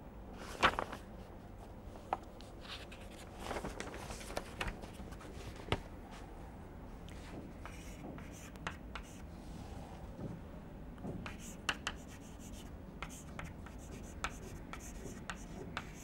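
Faint scratching of a pen writing, in short strokes, with scattered light taps and clicks between them.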